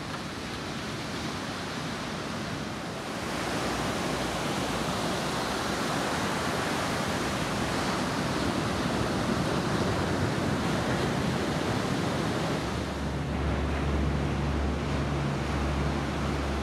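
Surf breaking on a sandy beach, a steady rushing wash of waves. A low steady hum joins in about thirteen seconds in.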